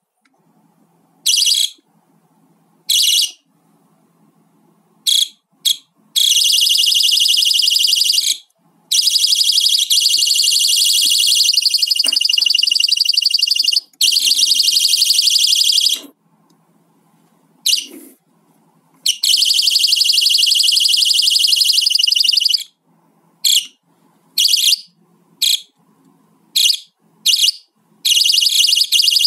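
The piezo siren of a JD-188 security alarm sensor sounding its shrill, high-pitched alarm. It starts as a few short beeps, then gives several long blasts lasting a few seconds each with short breaks between, and ends in a quick string of short beeps.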